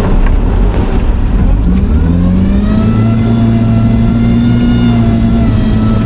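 Toyota Corolla's engine revving up about two seconds in and then held at high revs, as the car tries to drive out of deep mud. Before that, a noisy rush with scattered clicks.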